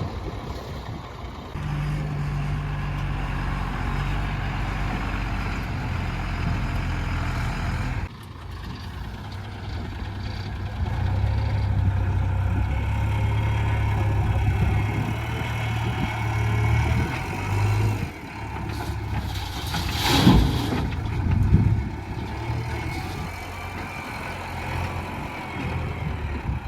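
Heavy diesel engines of a backhoe loader and tipper trucks running at a worksite, shifting in pitch and load several times. There is a short, sharp hiss about twenty seconds in.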